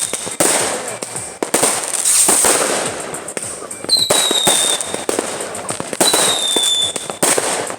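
Fireworks and firecrackers going off all around: a rapid run of bangs and crackling. A high whistle sounds about four seconds in and again about six seconds in.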